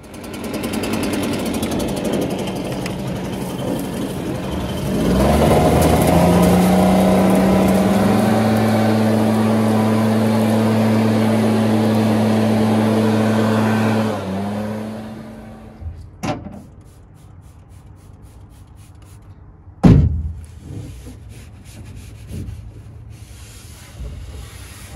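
Handheld leaf blower running while blowing dust out of an aluminum boat hull; about five seconds in it speeds up with a rising whine to a steady high-speed tone, then winds down around fourteen seconds. A few knocks follow, the loudest about twenty seconds in.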